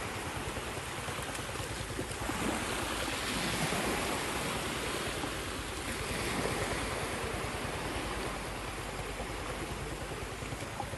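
Small waves washing up a shallow sandy beach: a steady rush of surf that swells and eases a couple of times.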